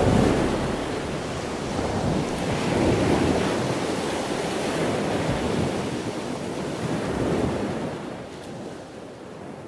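Ocean surf washing in slow swells, without tones, sinking away near the end.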